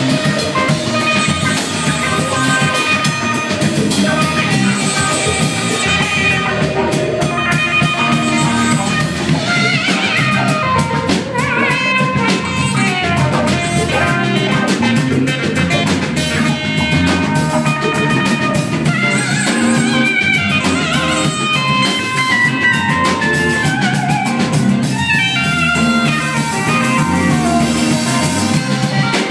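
Live rock band playing, with guitar over a drum kit, loud and steady throughout.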